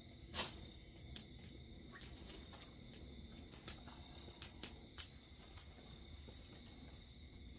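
Wood fire in a stove crackling faintly, with sharp pops at irregular moments, the loudest about half a second in, over a faint steady high-pitched whine.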